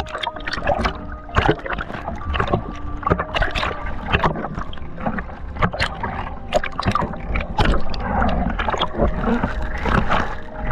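Choppy sea water splashing and sloshing in many short irregular strikes, over a steady low rumble of wind on the microphone.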